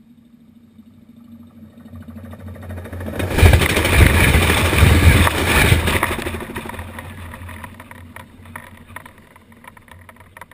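A train passing directly overhead at track level: the noise builds as it approaches, runs loud and rumbling for about three seconds as it goes over, then fades as it moves away.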